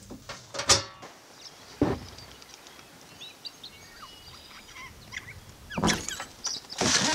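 A metallic clank with a short ring, then a knock, then faint scattered bird chirps over a quiet background. Near the end come a few louder scuffing, crunching noises.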